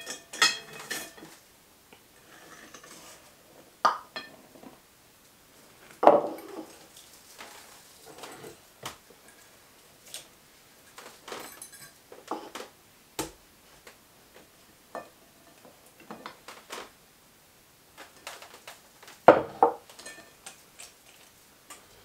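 Metal utensils clinking and knocking against a glass mixing bowl as flour is measured in and stirred with a whisk, with scattered short clinks and a few louder knocks, the loudest about six seconds in and a cluster near the end.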